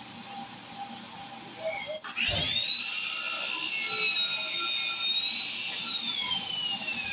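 Handheld angle grinder fitted with a wire brush. About two seconds in it spins up with a rising whine, then runs steady and loud while scrubbing rust off a steel post, and winds down with a falling whine near the end.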